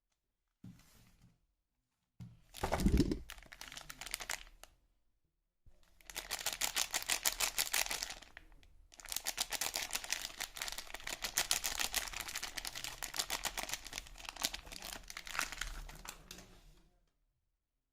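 Soap packaging crinkling as it is handled and unwrapped. A short bump of handling comes about two seconds in, followed by two long stretches of dense, crackly crinkling.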